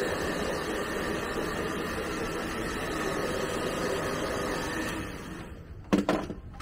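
Handheld hair dryer blowing steadily, then dying away about five seconds in. Shortly after, a brief loud thump.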